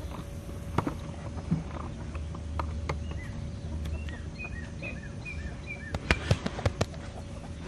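Farmyard background with a faint steady hum, a bird calling a run of about six short chirps, and a handful of sharp clicks and taps, bunched near the end.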